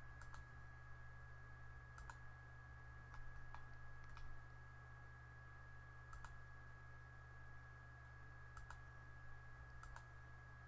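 Faint computer mouse clicks, single or in quick pairs every second or two, over a steady low hum.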